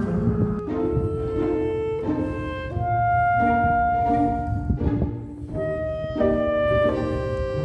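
Background instrumental music: a slow melody of held notes, changing pitch every second or so.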